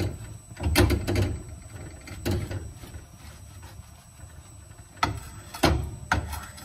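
Wooden spoon stirring and scraping a sticky Rice Krispies mixture around a frying pan, knocking against the pan: several irregular scrapes and knocks, a cluster about a second in and another about five to six seconds in.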